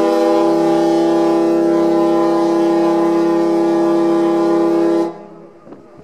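Ferry's horn sounding one long, steady blast of several held tones, cutting off about five seconds in.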